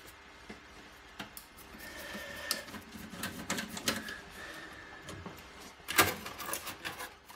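Hands and a screwdriver working on a cassette deck's open metal chassis and tape transport: scattered light clicks and taps, with a burst of louder clatter about six seconds in.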